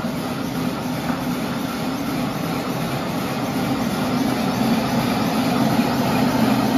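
Hand-built, LPG-fired scale live-steam locomotive running under steam: a steady hiss and rumble that grows a little louder.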